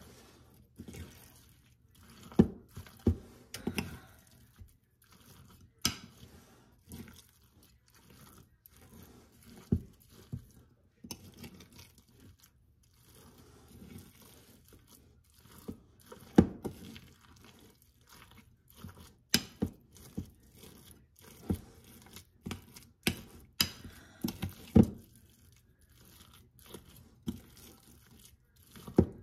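A metal spoon mixing ground beef with eggs and oatmeal in a bowl: soft wet squelching with irregular clicks and knocks of the spoon against the bowl.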